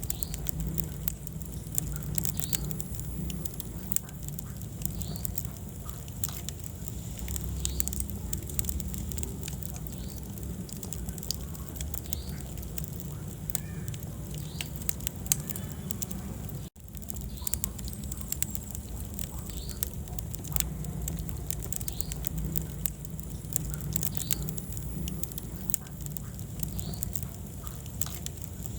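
Wood fire burning in a fireplace: a steady low rumble of flame with frequent sharp crackles and pops. The sound drops out for a split second about two-thirds of the way through.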